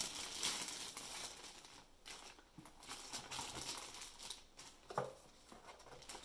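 Rustling and crinkling of packaging being handled, with scattered light taps and one sharper knock about five seconds in.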